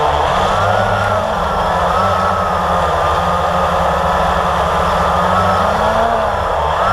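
Blade 350 QX quadcopter's four electric motors and propellers whining close up, the pitch rising and falling as the throttle changes, with a dip about six seconds in.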